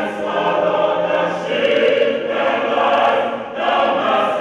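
A choir singing together in sustained phrases, with short breaks between them.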